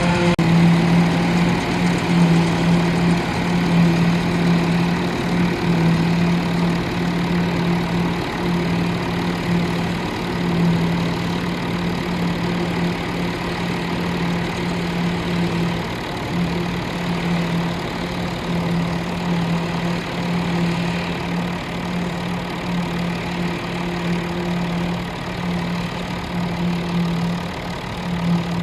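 Massey Ferguson 135 tractor engine running at a steady speed while pulling a hay rake, a constant drone with a slight pulsing.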